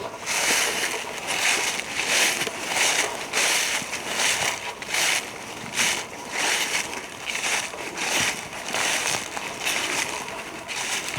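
Footsteps crunching through dry fallen leaves at a steady walking pace, a little under two steps a second.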